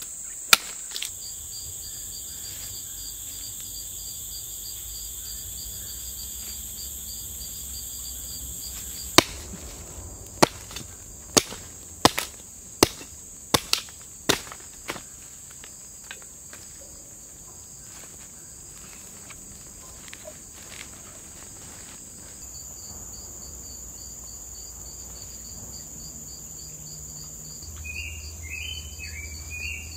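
Sharp knocks of a machete chopping wood: a couple in the first second, then a run of about ten spaced chops between roughly nine and fifteen seconds in. A steady high insect drone runs underneath, with a few short bird chirps near the end.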